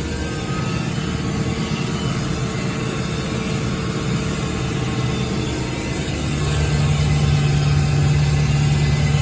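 Tractor engine running steadily, heard from inside the cab, getting louder about six seconds in.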